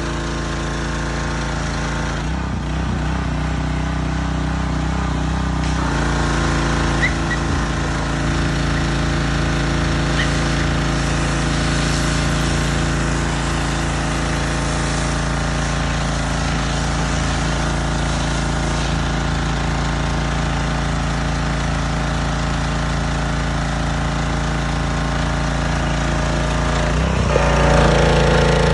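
A small engine running steadily, with slight changes in its note about six seconds in and again near the end.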